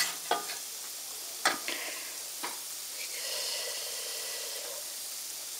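A metal spoon stirring and lifting a whole chicken in a stainless steel pot of simmering chicken broth, over a steady bubbling hiss from the pot, with a few clinks of the spoon against the pot in the first half.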